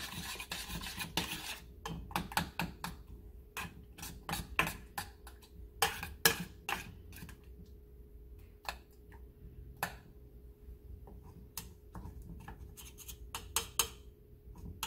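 A metal spoon stirring thick strawberries and syrup in a stainless steel saucepan, clinking irregularly against the pan's sides and bottom as cornstarch is worked in to break up clumps. The clinks are busier at first, thin out in the middle, and pick up again near the end.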